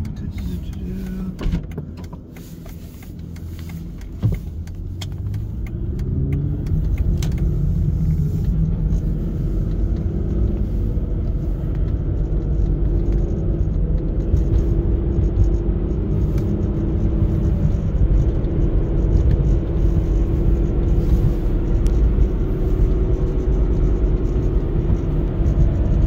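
Aston Martin engine and road noise heard inside the cabin as the car picks up speed: the engine's pitch rises over the first several seconds, then settles into a steady low rumble at road speed. Two short knocks come in the first few seconds.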